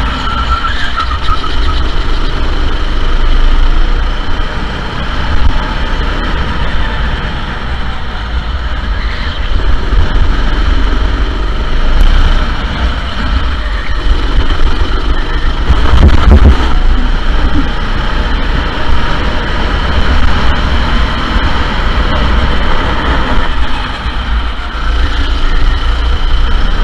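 Sodi SR4 go-karts' four-stroke single-cylinder engines running steadily, with a deep low rumble and a louder moment about sixteen seconds in.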